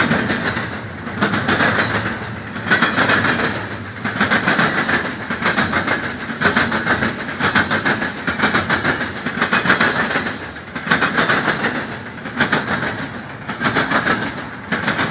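Freight train cars rolling past with a clattering of wheels over the rail joints, swelling and fading about once a second as each car's wheel sets go by.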